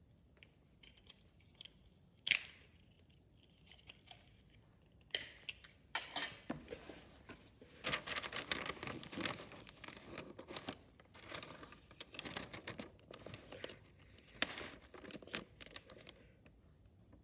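Christmas wrapping paper being handled: a few light clicks and one sharp snap, then from about five seconds in a long run of crinkling and rustling that stops near the end.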